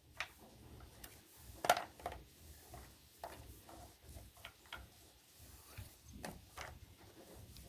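Light handling noise: scattered clicks, knocks and rubbing of plastic vacuum-cleaner parts being handled, with one louder click a little under two seconds in.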